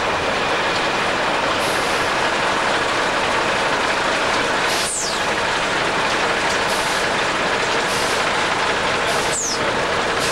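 Heavy-haulage truck running close by: a dense, steady diesel noise with no clear pitch. Two brief falling swishes come about five and nine seconds in.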